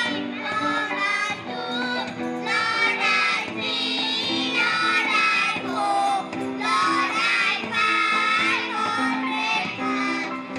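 A children's choir singing together into microphones, with instrumental accompaniment under the voices.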